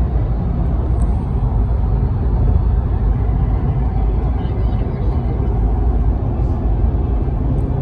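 Road noise of a car moving at freeway speed, heard from inside the cabin: a steady low rumble of tyres and wind.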